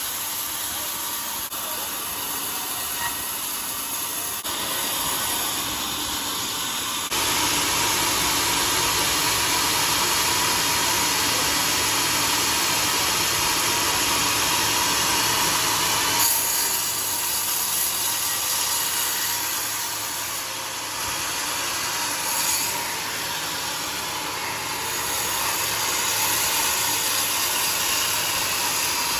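Homemade sawmill running and sawing a log of johar wood, a steady machine drone with the whine of the blade in the wood. It grows louder about seven seconds in, eases off around twenty seconds, then builds again.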